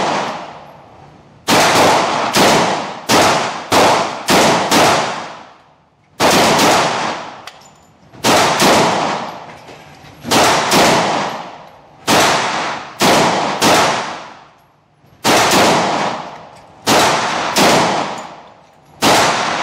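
Springfield XDM 4.5 10mm pistol being fired repeatedly, with shots in quick strings of two to five and short pauses between strings. Each shot rings on in the echo of an indoor range.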